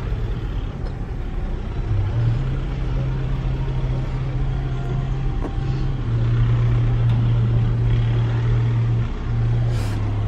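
Car engine and tyre noise heard from inside the cabin while driving slowly. The engine's low hum steps up in pitch about two seconds in and again around six seconds, then drops back near the end as the car slows.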